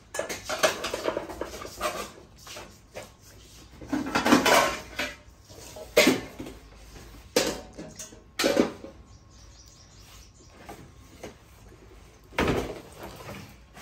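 Kitchenware being handled and moved about: metal pots and plastic baskets clattering and knocking in a series of sudden bursts, loudest about four and six seconds in.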